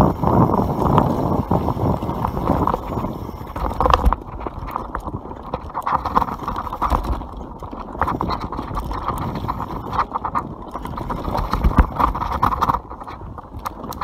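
YT Capra enduro mountain bike descending a dirt trail at speed: tyres rolling over the ground and the bike knocking and rattling over bumps and roots in a quick, uneven patter. Wind rushes on the microphone at first and eases off about four seconds in.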